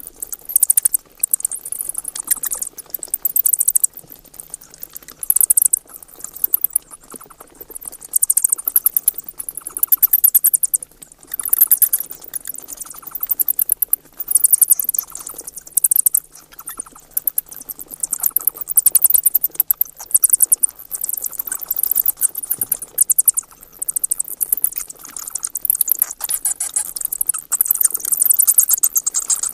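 Bats chittering: rapid, very high-pitched squeaks in dense bursts that come and go every second or two.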